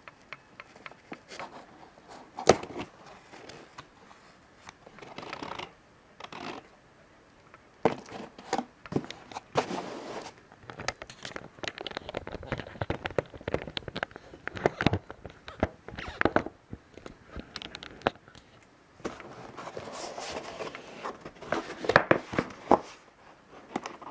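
Adhesive tape being peeled off a cardboard box, crackling and tearing in irregular stretches, mixed with knocks and rustles of the cardboard being handled. A sharp snap comes a couple of seconds in and several more near the end.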